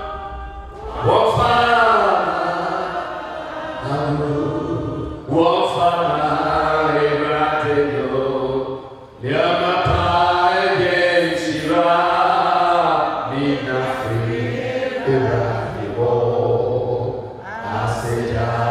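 Voices singing a slow song together in long held phrases, with short breaks for breath between them.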